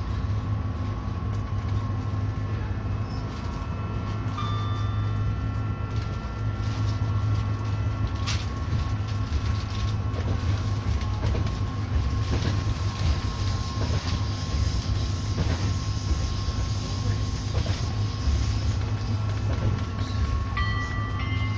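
Class 399 Stadler Citylink tram-train running along mainline track, heard from the driver's cab: a steady low rumble with a faint steady whine, and scattered clicks from the wheels on the rails, the sharpest about eight seconds in.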